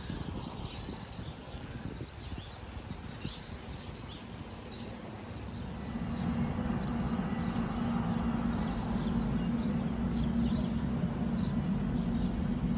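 Birds chirping over outdoor background noise, then from about six seconds in a steady low machine hum comes in and grows louder.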